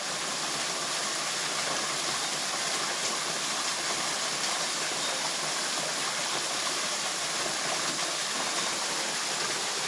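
Creek water running, a steady rushing noise.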